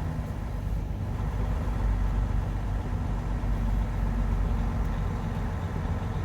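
Semi truck's diesel engine running steadily at low revs.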